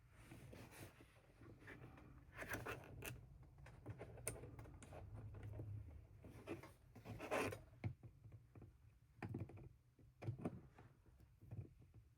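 Quiet hand-handling noises of small objects on a work surface: scattered light taps, clicks and brief scratchy rustles over a faint low hum.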